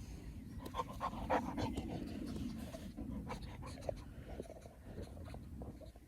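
Young boxer dog panting, with scattered small clicks and rustles.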